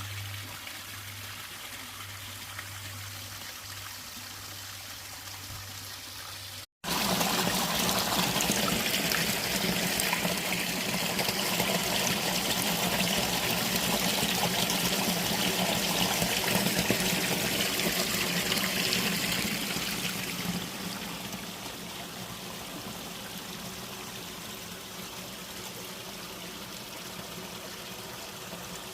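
Running water flowing and trickling. The first part is quieter, with a low steady hum under it; after a sudden cut about seven seconds in, the water is louder and fuller, then eases off after about twenty seconds.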